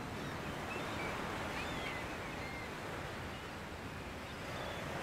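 Steady seaside ambience: an even wash of water and wind, with a few faint high bird chirps about one and a half to two seconds in.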